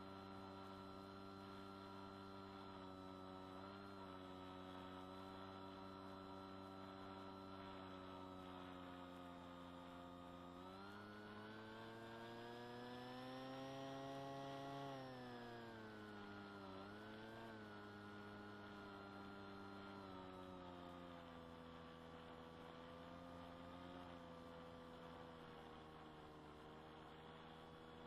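Electric motor and propeller of an FPV model plane heard through its small onboard microphone: a faint, steady pitched drone. About ten seconds in the throttle opens and the pitch climbs to a peak around the middle, then falls back with a short blip and settles lower as power is cut.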